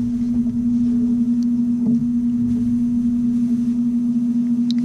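A steady low-pitched hum on one unchanging tone, with a faint rumble beneath it.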